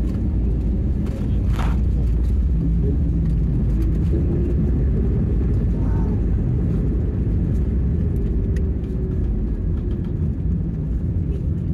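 Steady heavy rumble inside the cabin of a narrow-body jet airliner on its landing roll: engine and runway noise through the fuselage. A faint engine hum drifts down in pitch and the rumble eases slightly in the last few seconds as the aircraft slows.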